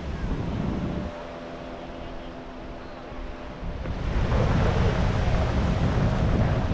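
Wind buffeting the microphone over small waves washing up the shore, louder from about four seconds in.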